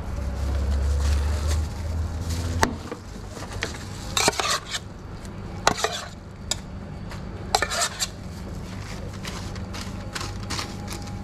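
A utensil scraping and clinking against a steel food pan of guacamole, in a string of short sharp scrapes and clicks. A low steady hum stops about two and a half seconds in.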